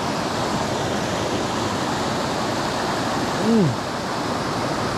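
Creek water rushing over rocks, a steady hiss. About three and a half seconds in, a man's voice gives one short rising-and-falling hum.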